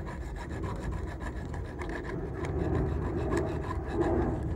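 Half a dozen boilie baits rolling and rattling around a frying pan as it is swirled over the heat. It is a continuous rolling rasp with small clicks as the baits knock against the side of the pan. That knocking is the sign that the baits are hardening into buoyant pop-ups.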